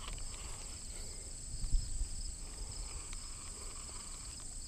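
Steady high-pitched chorus of insects, two constant tones, over a faint low rumble, with one soft knock near two seconds in.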